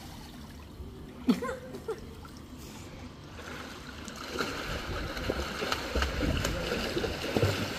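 Swimming-pool water splashing and lapping as swimmers move through it, busier from about four seconds in, with one short sharp sound about a second in.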